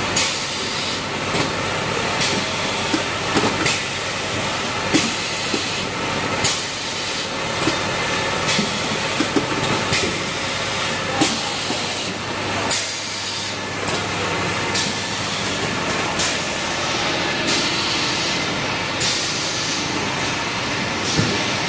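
Automatic sleeve shrink-wrapping machine running: a steady hiss and whir with a low hum underneath, broken by irregular clicks and knocks from its conveyor and sealing mechanism.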